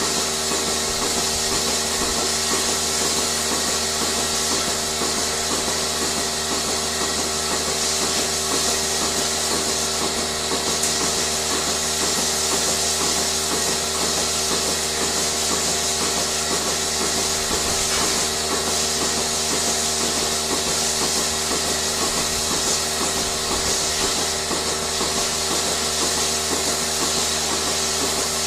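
Machinery running steadily, with several constant hums, a hiss over them, and a fast, regular pulsing beneath.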